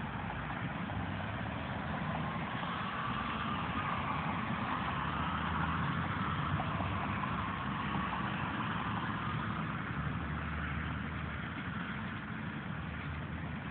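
Road traffic with trucks and cars passing: a steady low engine hum under tyre noise that swells about five seconds in and then eases off.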